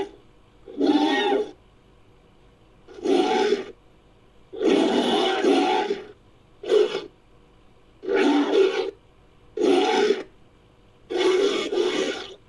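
Creature sound effects for a fictional oviraptorid dinosaur, built from oviraptor calls: a series of about seven separate calls, each under two seconds long, with short pauses between them.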